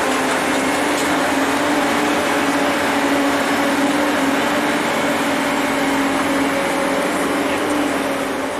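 Steady machine-like hum with a constant rushing noise and two steady tones, one lower and one higher.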